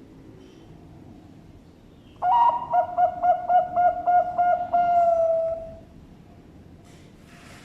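Bangkok-strain zebra dove (perkutut) cooing: a single song starting about two seconds in, a quick run of short notes that ends in one long held note, lasting about three and a half seconds.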